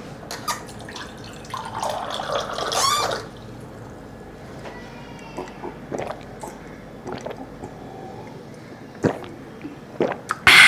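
Water from an AO Smith water purifier's dispensing tap running into a glass for about a second and a half, the pitch rising as the glass fills. Afterwards come scattered small clicks and knocks, and a sudden louder sound right at the end.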